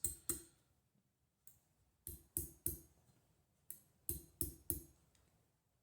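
Metal hammer taps on a fine silver ring being shaped, each strike ringing briefly. Two taps come at the start, then short runs of three and four quick taps with pauses between.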